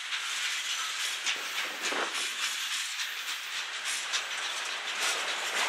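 Freight cars of a manifest train rolling past: steel wheels on the rails give a steady hiss with scattered clicks.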